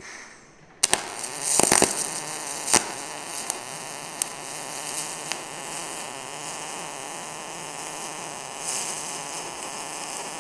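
MIG welding arc in spray transfer on a Miller Millermatic 255 with 90/10 argon/CO2 shielding gas, running at 27 volts and 425 inches per minute wire feed on quarter-inch plate. The arc strikes about a second in with a few sharp pops and a brief burst of crackle, then settles into a steady, even hiss.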